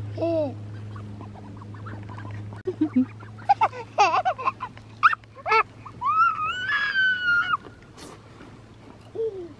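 Mallards quacking around a canoe: short quacks every second or two, with a longer drawn-out call in the second half.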